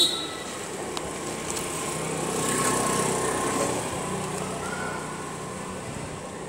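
A small-engined motor vehicle passing by: its engine noise swells to a peak about three seconds in, then fades.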